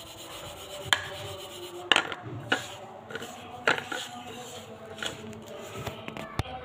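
Fingers rubbing and mixing dry spice powders on a ceramic plate. About six sharp clicks, irregularly spaced, come as fingers and nails knock against the plate.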